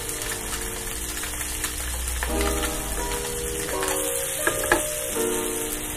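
Fish fillets frying in butter in a pan, a steady sizzle, under background music. A few sharp clicks come about four and a half seconds in as a spatula works the pan.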